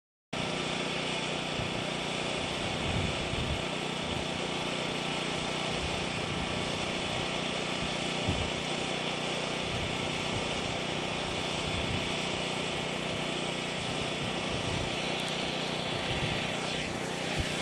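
Wind buffeting the camera microphone: a steady rushing hiss with irregular low gusty rumbles, over a faint steady hum.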